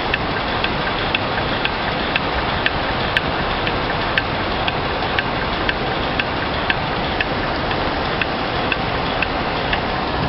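A machine running with a steady hiss-like noise and a sharp click repeating evenly about twice a second. The sound is labelled as abnormal.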